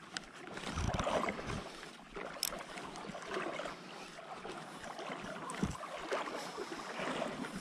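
Shallow creek water sloshing and swishing close to the microphone, with wind on the microphone and a few low thumps, about a second in and again near the end.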